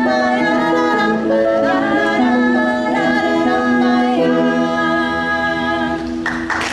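Live music with singing, a melody in long held notes. It breaks off near the end as applause begins.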